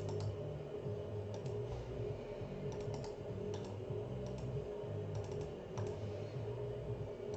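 Computer keyboard and mouse clicks: a few scattered keystrokes and clicks over a steady low hum.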